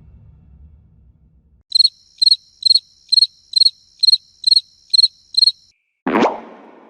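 Crickets sound effect: nine short, evenly spaced, high chirps, about two a second. It follows the fading tail of a low rumble, and near the end a different, sudden effect starts and dies away.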